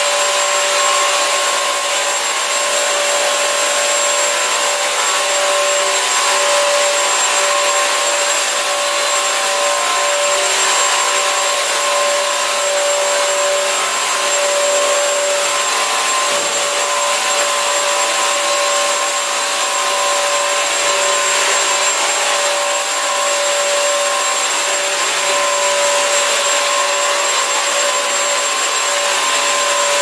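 Bissell CrossWave wet-dry vacuum-mop running in hard-floor mode while pushed back and forth over a hardwood floor. The motor gives a loud, steady whine with a hiss, holding level throughout.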